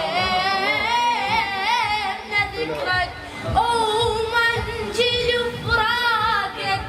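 A voice singing long, ornamented notes with a heavy quiver, over music with irregular low beats.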